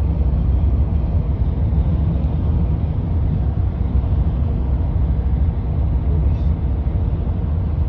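Steady low rumble of a car driving along a highway, with road and tyre noise.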